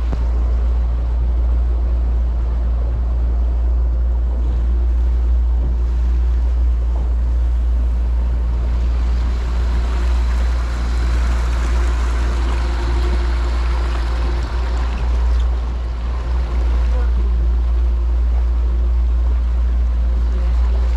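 Small boat under way with its outboard motor running steadily, water rushing and splashing past the hull and wake, louder for several seconds in the middle.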